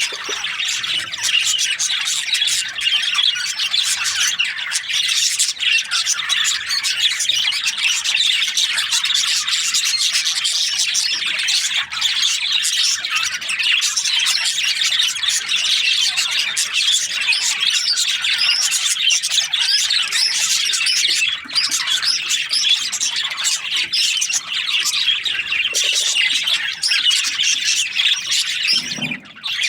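Many budgerigars chattering and chirping at once, a dense, unbroken flock chorus with squawks mixed in, dipping briefly near the end.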